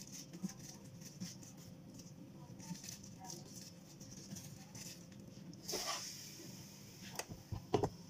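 Gloved hands handling food on the plate of an electric pizza maker: faint rustles and small taps over a steady low hum, a brief swish about six seconds in, then a few sharp knocks near the end as the lid is lowered shut.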